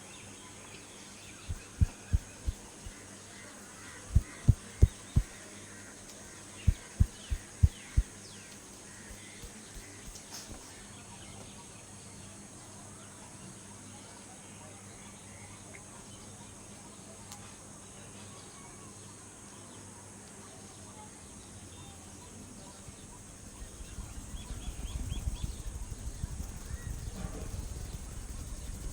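Soft, muffled thuds of hands patting or tapping during a massage, in three quick groups of about four strokes each within the first eight seconds. Near the end, a low, continuous rubbing sound of hands working over the body begins.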